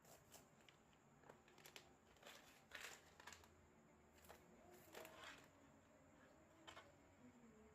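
Faint handling noises: a scatter of small sharp clicks and rustles, bunched together about two to three seconds in and again around five seconds in.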